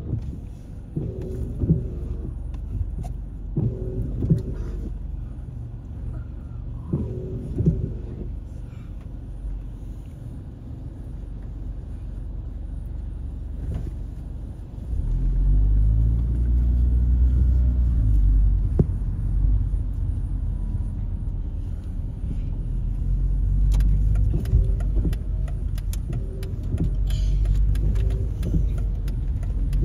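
Low vehicle rumble heard from inside a car in traffic. It grows louder and deeper about halfway through, with engine pitch rising and falling.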